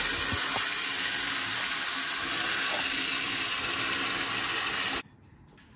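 A stream of tap water pouring into a plastic bucket, filling it with a bleach and dish-soap cleaning mix that foams up. The flow is steady and cuts off suddenly about five seconds in.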